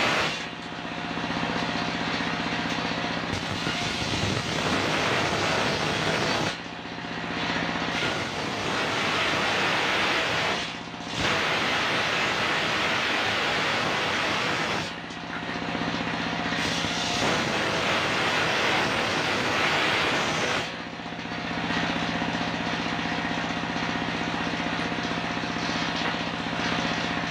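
Large engine-driven circular saw bench ripping coconut-palm (glugu) planks: several long stretches of loud cutting noise, broken by short spells where the blade runs free and the engine's steady hum comes through.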